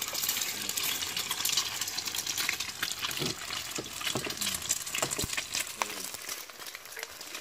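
Eggs frying in hot oil in a pan: a dense crackling sizzle dotted with small pops, starting as an egg goes into the pan and easing off near the end.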